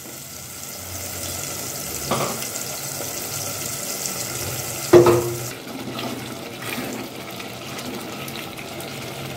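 Ground tomato and onion sizzling in oil in a clay pot as it is stirred with a wooden spatula. There is a light knock about two seconds in and a louder knock about five seconds in, and the hiss eases soon after.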